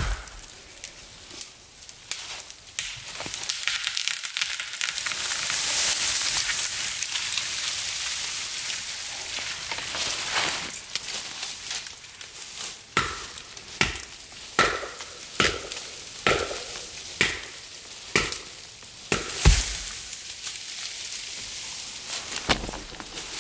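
A felled tree going over: a rush of breaking twigs and branches swishing through the neighbouring trees for several seconds, swelling and dying away. Then a series of sharp axe blows on wood, about one a second.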